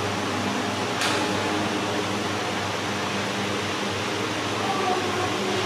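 Steady background hiss with a faint low hum, broken by a single sharp click about a second in.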